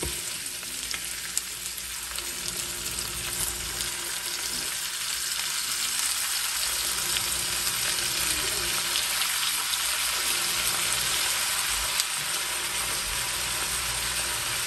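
Thin-sliced marinated beef sizzling in hot oil in a wok with onions as more meat is added, a steady frying hiss that grows a little louder as the pan fills. A couple of sharp clicks stand out above it.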